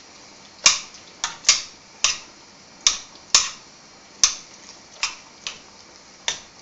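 About ten sharp clicking taps at uneven spacing, of kitchenware knocking together while tuna is worked into a pan.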